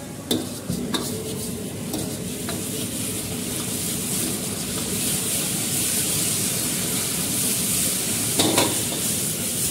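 Sauce and vegetables sizzling in a hot metal wok while a metal ladle stirs and scrapes through them, with a few sharp ladle knocks against the pan in the first couple of seconds. A brief louder noise comes about eight seconds in.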